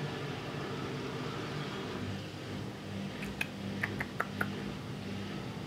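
Steady low mechanical hum, with four short sharp clicks in quick succession a little past the middle.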